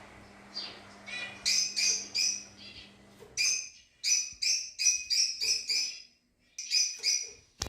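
Fischer's lovebirds chirping in quick runs of short, shrill calls, about three to four a second, with a brief gap about six seconds in. A single sharp click near the end.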